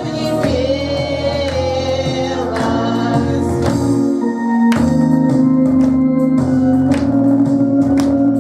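Music: a song with singing over sustained organ-like keyboard chords and percussion hits.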